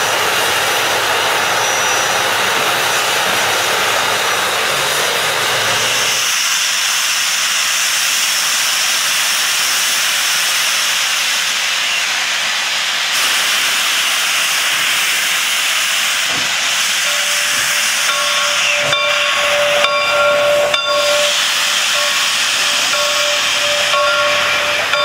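Steam locomotive venting steam: a loud steady hiss from Reading & Northern 4-6-2 Pacific No. 425's cylinder cocks. A ringing tone comes and goes over the hiss in the last several seconds.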